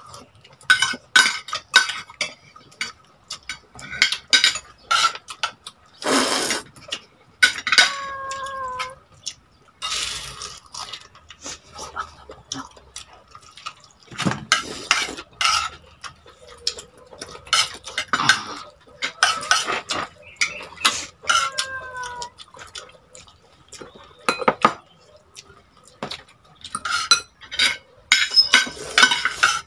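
Spoon and fork clinking and scraping against a plate, many quick clicks in uneven bursts, mixed with close-up eating sounds. Twice, a short pitched call sounds in the background.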